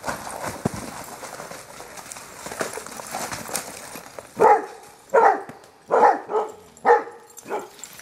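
Dogs running and scuffling over snow, then about halfway through a dog barks repeatedly: about six loud barks in quick succession.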